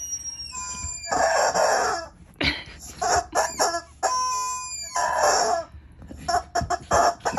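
Rubber fried-chicken squeaky dog toy squeaking over and over as a miniature dachshund bites and shakes it. There are longer squeaks about a second in and about five seconds in, with short squeaks between them. Between squeezes come thin whistles that fall in pitch.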